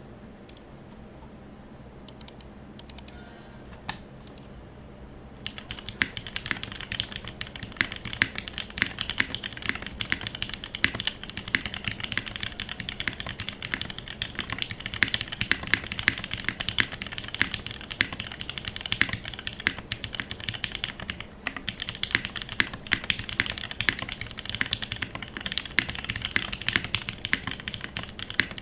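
Typing on a TGR Jane v2 mechanical keyboard with lubed Cherry MX Clear tactile switches on a brass plate and GMK keycaps. A few isolated key clicks come first, then steady fast typing starts about five seconds in and keeps going.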